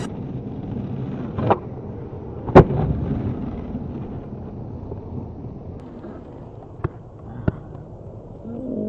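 Skateboard wheels rolling on asphalt with a steady rumble, broken by a few sharp clacks of the board and the skater's feet, the loudest about two and a half seconds in.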